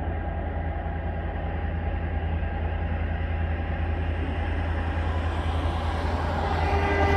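TasRail diesel locomotives approaching on a coal train, a steady low engine drone with a few held tones that slowly grows louder. Near the end a car passes, adding a swell of road noise.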